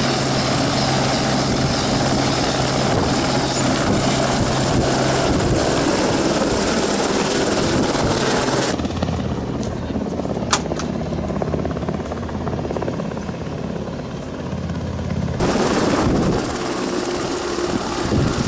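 Helicopter running close by: a loud, steady rotor and engine noise with a low hum underneath. About halfway through it turns quieter and duller for several seconds, then comes back loud.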